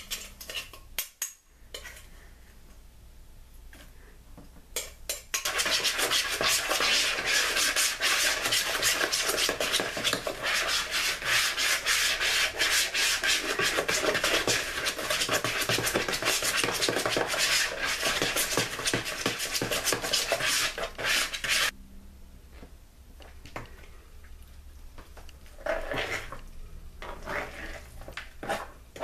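A utensil rapidly beating a wet egg and breadcrumb mixture in a mixing bowl, a dense rattle of scraping strokes that starts about five seconds in and stops abruptly at about twenty-two seconds. A few light clicks come before it and a few looser strokes near the end.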